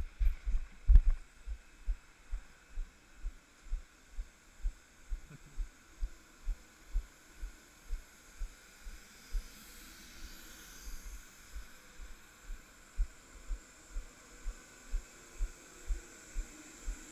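Footsteps walking at a steady pace, heard as regular low thuds about two a second through a body-worn camera, over a faint steady hiss with a thin high whine that grows near the end.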